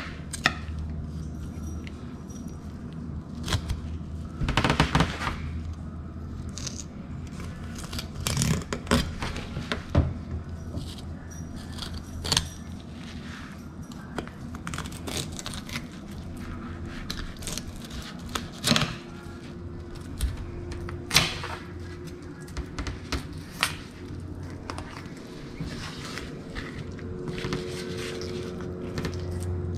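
Knife scraping and knocking at irregular intervals while a cichlid is filleted along its backbone, over a steady low hum.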